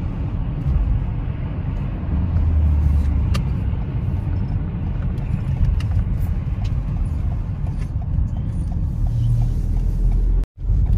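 Steady low rumble of a car driving, heard from inside the cabin: engine and tyre noise with no speech. It cuts out for a moment near the end.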